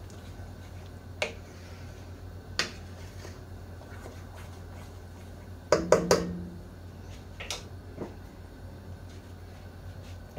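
Kitchen clicks and knocks as spice containers and utensils are handled over a stovetop pan: a few sharp single clicks, and a louder cluster of clattering knocks about halfway through that rings briefly.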